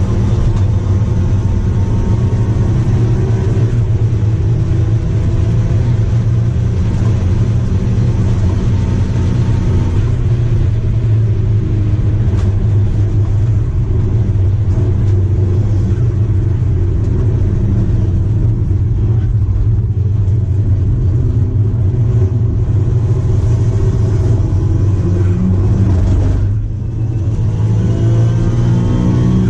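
Daihatsu Charade GTti's 993cc turbocharged three-cylinder engine running hard at high revs, heard from inside the stripped race car's cabin. Near the end the sound drops briefly, then the revs climb again.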